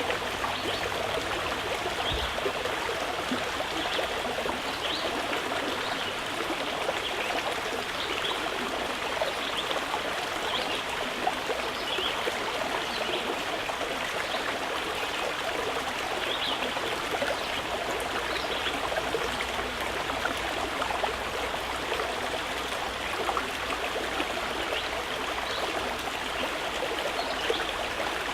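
Flowing water running steadily, a continuous babble with many small trickles and splashes and no pauses.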